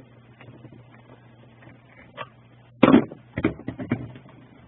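Small clicks and knocks of hand screwdriver work on an old plastic power-supply case, with one loud sharp sound about three seconds in followed by a quick run of knocks, over a steady low hum.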